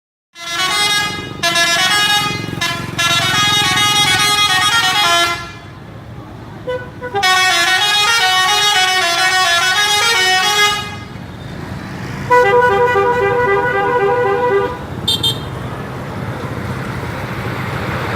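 Indonesian bus "telolet" musical horn playing a tune in three loud phrases with short gaps between them; the third phrase is a fast repeated two-note trill. A brief high toot follows, over the steady low running of the bus engine.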